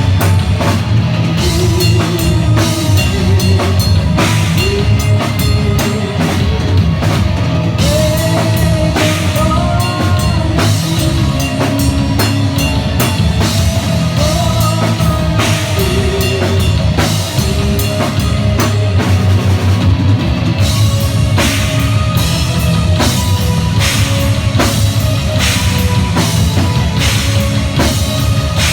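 Live heavy metal band playing at full volume, the drum kit prominent with dense, rapid drum and cymbal hits under a wavering melodic line.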